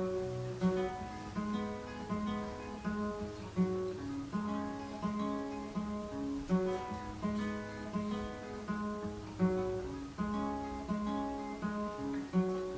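Solo acoustic guitar playing a steady, repeating pattern of notes over a bass line, with no singing.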